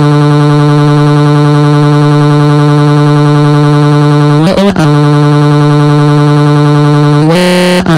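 Loud, distorted, electronic-sounding "waaaa" crying wail held on one steady pitch, dipping briefly about four and a half seconds in and jumping higher near the end before cutting off.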